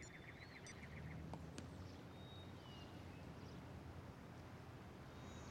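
Quiet outdoor ambience: faint, scattered bird chirps over a low background rumble, with a soft rhythmic chirring that fades out about a second in.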